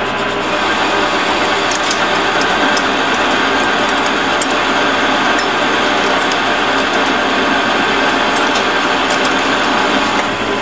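Metal lathe running under cut, a carbide insert turning hot-rolled steel round stock to take off the mill scale. The spindle and gearing give a steady whir together with the cutting noise, and scattered sharp ticks sound throughout.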